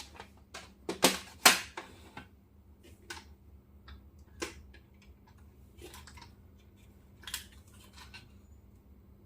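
Hands handling a diecast model car and its packaging: two sharp clicks about a second in, then scattered fainter clicks and light rustling.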